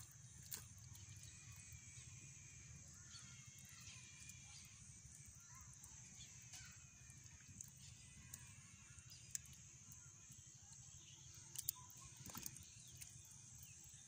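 Near-silent outdoor ambience: a steady high hiss over a low rumble, with faint bird chirps in the first half. Near the end there are a few soft splashes from hands working in shallow muddy water.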